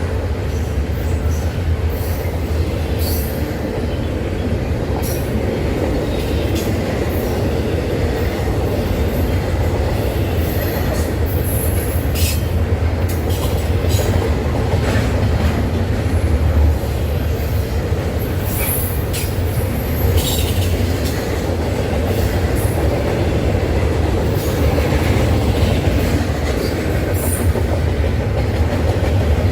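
Train rolling past with a steady low rumble, broken by scattered high-pitched wheel squeals and clicks.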